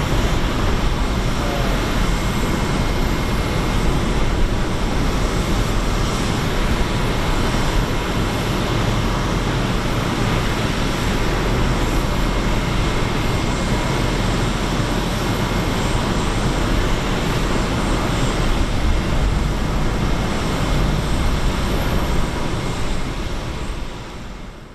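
Boeing 777-300ER's GE90 jet engines running with a loud, steady roar and a faint steady whine, fading out near the end.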